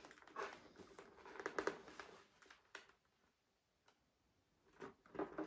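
Faint handling noise from a motorcycle helmet being turned over in the hands: scattered rubs, rustles and light clicks for the first few seconds, a quiet gap, then a couple more short rubs near the end.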